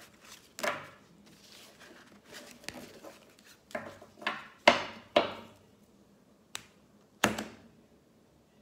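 Oracle cards being handled by hand: an irregular string of sharp taps and slaps, about nine in all, the loudest near the middle.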